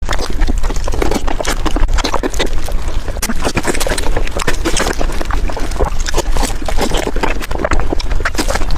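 Loud, close-miked mukbang eating sounds: wet chewing and lip-smacking on spicy braised beef ribs, a dense, irregular run of clicks and squelches.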